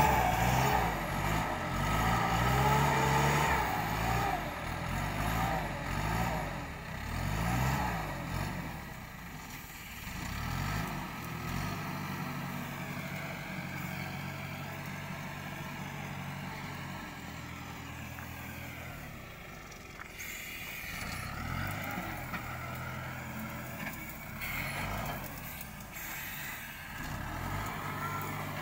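Wheel loader's diesel engine running and revving up and down as it works the bucket. It is loudest in the first several seconds, then settles to a steadier, lower drone with occasional swells.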